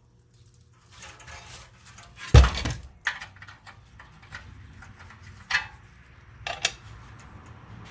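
Handling of a car seat-back frame being taken apart: one heavy knock about two and a half seconds in, then a few lighter metallic clicks and clatters over faint rustling.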